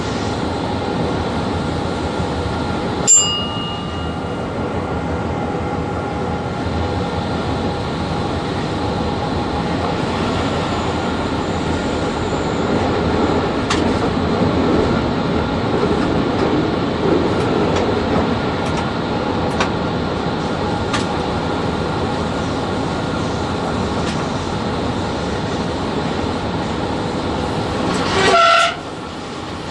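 Cab noise of a VL80 electric freight locomotive under way: a steady rumble from the running gear and traction equipment. A sharp click comes about three seconds in, and a short horn blast sounds near the end.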